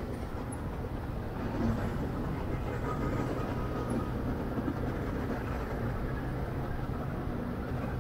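Motorcycle riding at speed in traffic: its engine running steadily under a dense rush of wind and road noise.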